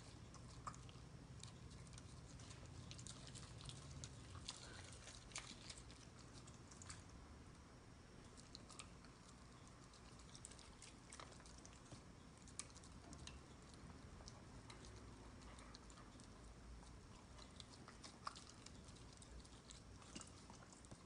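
Faint eating sounds: scattered small clicks of utensils against dishes and quiet chewing, over near silence.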